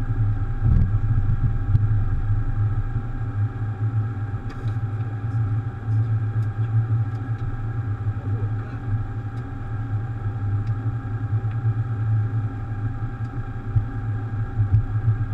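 Steady cabin drone inside a Boeing 737 cockpit: a continuous low rumble with several steady tones above it.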